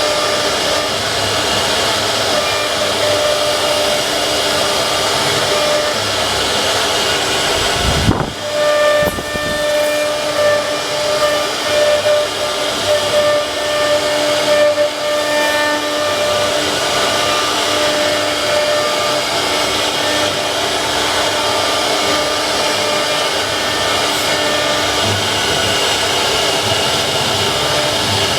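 Wood CNC router spindle running and cutting into wood, a steady hissing whine with several held tones. About eight seconds in there is a brief low thump, and for several seconds after it the whine's tones stand out more.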